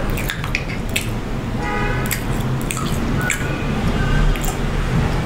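Close-miked chewing of crispy fried chicken: wet mouth clicks, smacks and crunches in quick irregular succession over a steady low hum.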